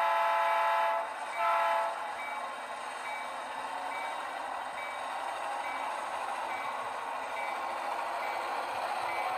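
Diesel locomotive sound from an HO-scale model locomotive: a horn blast that ends about a second in, then a short second blast. After that the bell rings steadily, a little more than once a second, over a steady engine hum.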